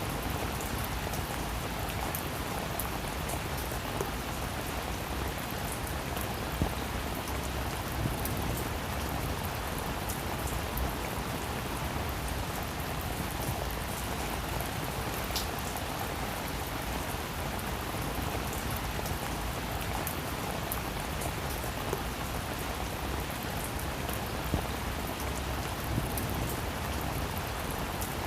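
Heavy rain falling steadily, a dense even hiss with scattered louder drop hits.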